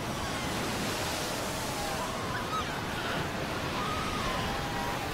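Surf breaking and washing in a steady rush over the rocks and beach of a Cape fur seal colony, with faint, high wavering calls from seal pups above the water.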